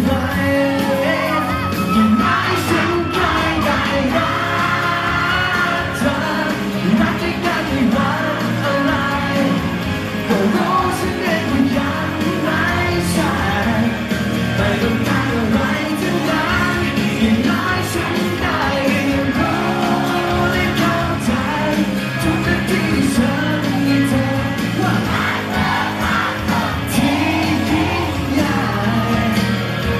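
A male vocalist sings a Thai pop-rock song live into a handheld microphone over amplified backing music.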